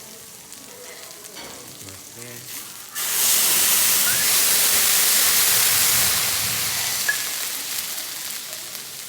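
Food sizzling on a hot teppanyaki griddle. About three seconds in, the sizzle jumps suddenly to a loud hiss, holds for about three seconds, then slowly dies down.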